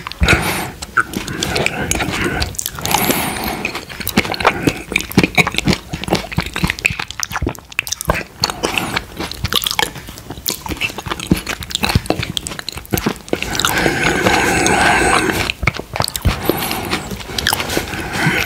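Close-miked wet eating sounds of creamy quark dessert with mango pieces taken from a metal spoon: many irregular mouth clicks, lip smacks and chewing. A longer, denser run of wet sounds comes about fourteen seconds in.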